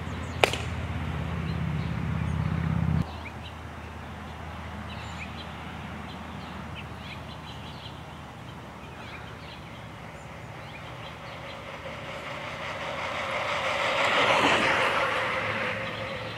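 A BMX bike rolls up and passes close by, its tyres on the asphalt swelling and fading about fourteen seconds in. Before that there is a low steady hum that cuts off abruptly about three seconds in, with faint bird chirps over the outdoor background.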